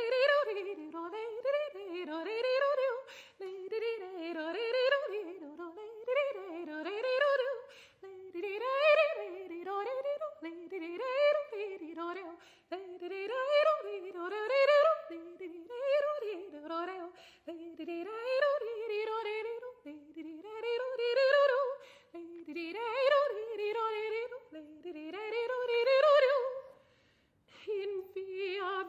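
Solo soprano voice singing unaccompanied in short phrases that rise and fall in pitch, with brief breaks between them and a longer pause near the end.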